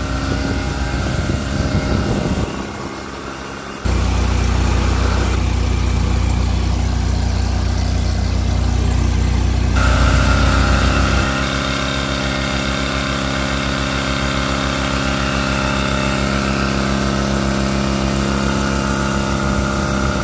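Dewalt DXCM601's belt-driven, cast-iron twin-cylinder compressor pump and electric motor running steadily, with a few abrupt changes in level.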